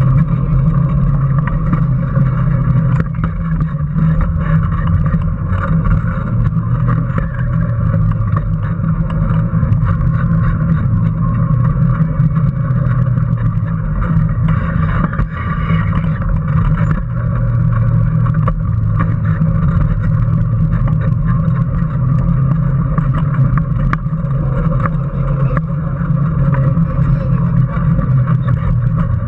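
Electric Power Racing Series car heard from its own onboard camera, driving steadily around the track: a constant low motor and drivetrain drone with frequent small rattles and clicks from the chassis and road.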